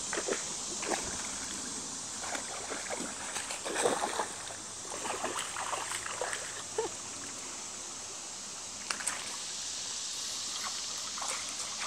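Shallow creek water running over stones, with irregular splashes as a dog wades through it, mostly in the first half.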